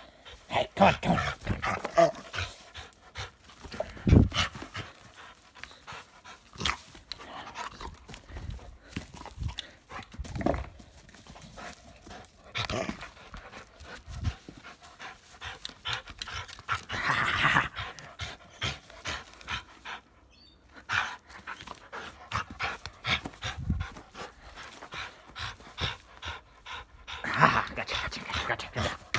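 A dog panting close to the microphone while playing tug with plastic ring toys, with irregular bumps and knocks throughout.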